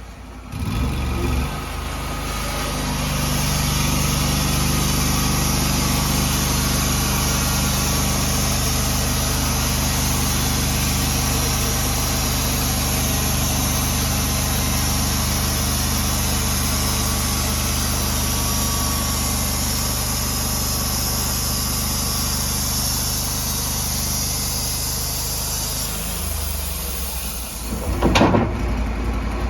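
Sawmill engine revving up and running steadily while the saw cuts a log, with a high hiss from the cut over the engine's drone; the engine eases off near the end, followed by a brief loud knock.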